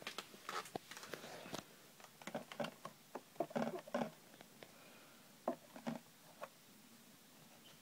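Light plastic clicks and knocks from a Paul Frank Julius monkey water dispenser being handled and its blue tap lever pressed, in several irregular clusters, quieter in the last second or so.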